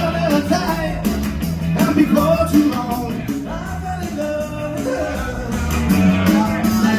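Live band playing a rock song with a singer, steady bass and drum beat, recorded in the room.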